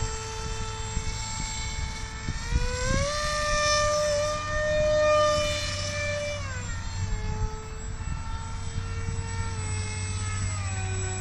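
Radio-controlled model Alpha Jet's motor whining in flight. The steady whine rises in pitch about two and a half seconds in, holds higher for a few seconds as the throttle opens, then drops back to its earlier pitch.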